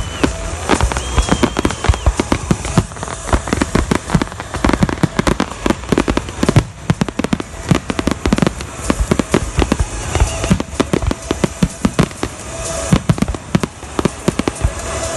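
Fireworks display: a dense, continuous run of bangs and crackles from aerial shells going off, many per second and irregular, with no let-up.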